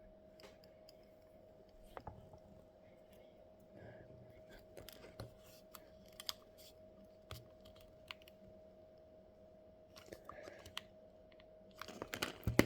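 Scattered light clicks and taps of small parts being handled, over a faint steady hum, with a quick flurry of clicks near the end.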